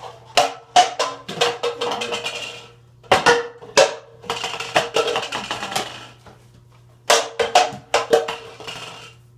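Bursts of sharp clicks and clattering, five or six clusters each about a second long with short gaps between: Nerf spring rifle shots and darts striking and knocking over cans.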